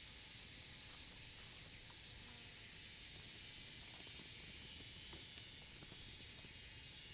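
Steady high-pitched drone of an insect chorus, with a few faint ticks over it.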